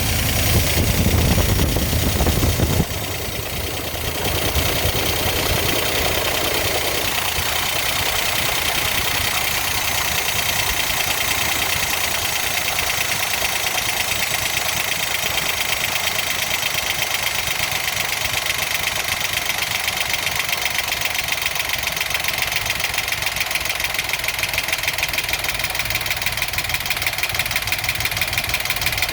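Engine running with a rapid, regular knock at idle. The low rumble is heavier for the first three seconds, then drops suddenly and the engine settles to a steady idle with the knock continuing.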